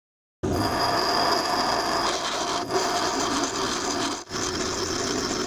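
Bench grinder wheel grinding a single-point lathe cutting tool held against it on the tool rest: a steady rasping hiss with a thin high whine running through it. It starts abruptly about half a second in and breaks off for a moment about four seconds in.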